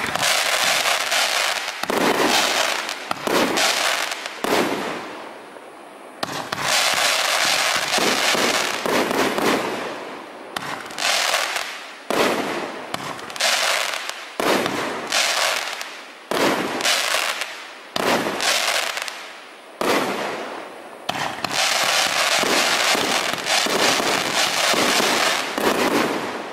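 Shogun Air Cracker 25-shot fireworks cake firing: shot after shot goes up and bursts into loud, dense crackling, in waves with brief lulls between them, until the crackling stops at the very end.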